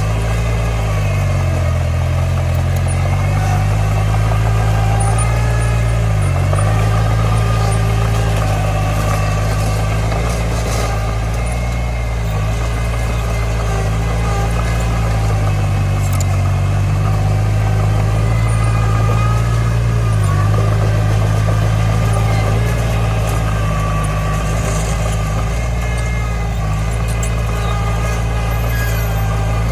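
Komatsu D20 bulldozer's diesel engine running steadily and loudly, its pitch dipping briefly and recovering several times as the load changes.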